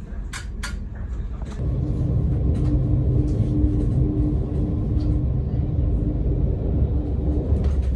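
Train running, a low rumble with a steady hum; it grows louder about one and a half seconds in, after a few light clicks.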